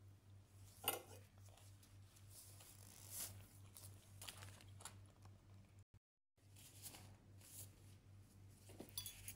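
Near silence with faint eating sounds: a few soft clicks and scrapes of a utensil on a plate, the loudest about a second in, over a low steady hum.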